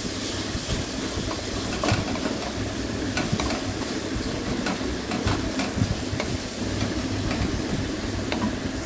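Onion, tomato and ginger-garlic paste sizzling in hot oil in a metal kadai as a wooden spatula stirs and scrapes it, with irregular light knocks of the spatula on the pan. The masala is being sautéed until the raw smell of the ginger and garlic is gone.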